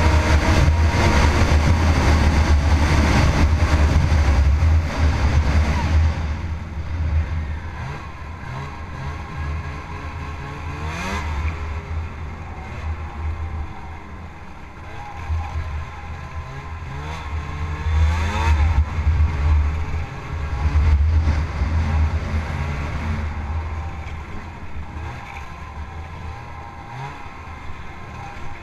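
Snowmobile engine under way, running loud and steady at speed for the first several seconds, then easing off and revving up again several times with rising pitch.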